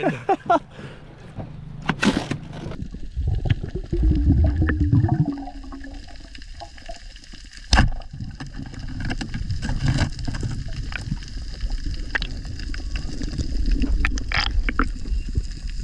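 Water sloshing and gurgling, with scattered knocks and one sharp thump about eight seconds in.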